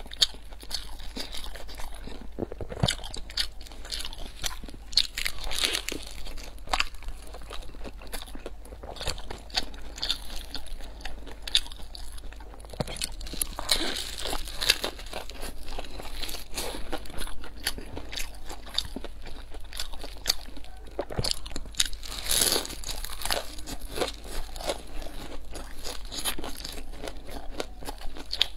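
Close-miked eating sounds: repeated crunchy bites into the crisp, pan-fried crust of a large stuffed flatbread, with chewing between bites and an irregular crackle throughout.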